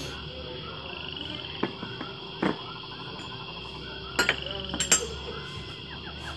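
Metal pieces clinking and knocking against a wire shelf as they are picked up and handled: a few sharp knocks, the loudest about five seconds in, over a steady high-pitched background drone.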